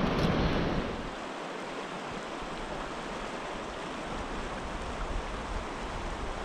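Steady rush of fast river current, louder and fuller for about the first second, then even.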